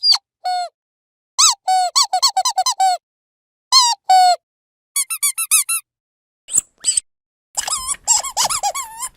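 Rubber dog squeaky toy squeezed in quick runs of short squeaks, each squeak rising and falling in pitch, the runs broken by silent gaps of about a second.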